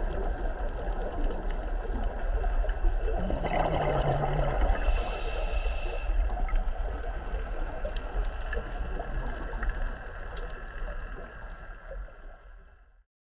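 Underwater ambience heard through a dive camera's housing: a steady low rumble and water noise, with a louder rush about three and a half seconds in. It fades out near the end.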